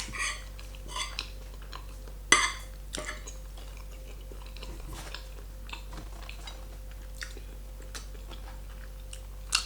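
Close-miked mouth sounds of someone chewing carbonara pasta, with scattered small clicks and one sharp click a little over two seconds in.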